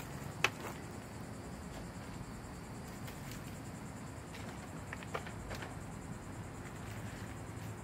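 A few light clicks and knocks of sticks of wood being set into a cinder block stove, the sharpest about half a second in and a couple more around five seconds in, over a steady high insect trill.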